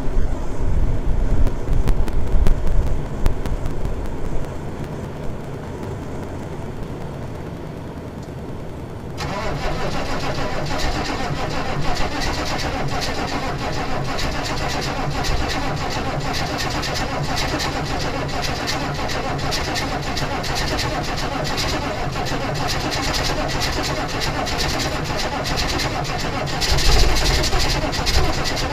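A 1996 Chevy K1500's 6.5-litre turbo-diesel V8 cranking and firing raggedly on a cold start, slow to catch because its glow plugs are bad. The first several seconds are uneven with heavy low knocks. About nine seconds in the sound changes abruptly to a steadier, harsher run, and it swells louder near the end.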